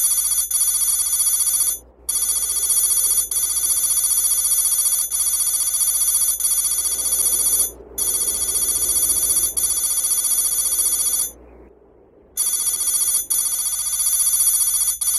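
High-pitched electronic ringing tone, like a telephone ring, steady and loud with a slight warble. It breaks off briefly about two seconds in and again about eight seconds in, then for about a second near the end, with a soft click every second or two.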